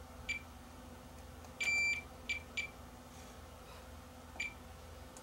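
Digital multimeter's continuity beeper sounding five times, four short chirps and one longer beep about a second and a half in, as the test probes touch the transistor leads on the receiver's circuit board while the driver transistors are checked.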